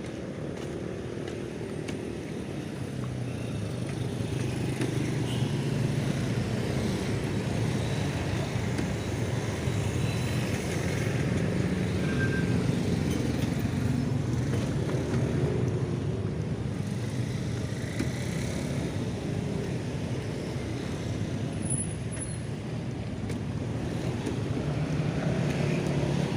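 A motor vehicle's engine running steadily with road and traffic noise, swelling a few seconds in and easing briefly near the end.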